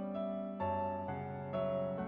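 Soft background piano music: a slow melody of held notes and chords, a new note about every half second.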